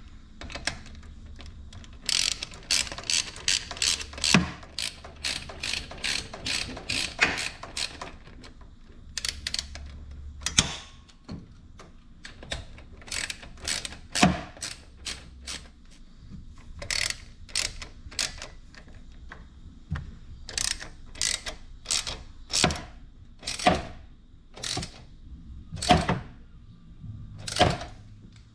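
Socket ratchet wrench clicking as its handle is swung back and forth to run in and tighten a 10 mm bolt on a small engine's side cover. A fast run of clicks comes first, then slower single clicks and short groups.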